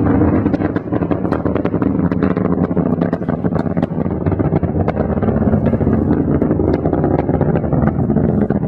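Space Shuttle Atlantis's solid rocket boosters and main engines during ascent: a loud, deep, continuous rumble with constant sharp crackling.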